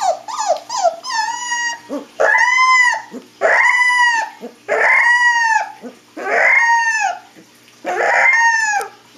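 A husky puppy howling: a few short, falling whimpers, then about five long howls in a row, each rising and then falling in pitch.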